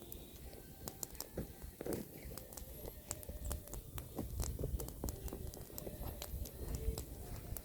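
Pruned apple branches burning in a bonfire, crackling with many sharp, irregular pops.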